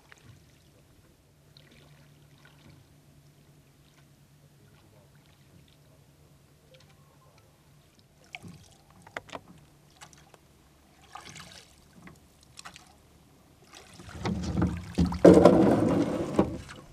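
Small boat out on a lake while gill nets are lifted: a faint steady low hum, scattered knocks partway through, and a louder rush of noise in the last few seconds.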